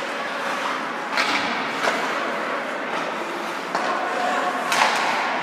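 Ice hockey being played in a large, echoing rink: a steady wash of skates on ice, broken by sharp cracks of sticks and puck. There is one crack about a second in, another just before two seconds, and the loudest near the end.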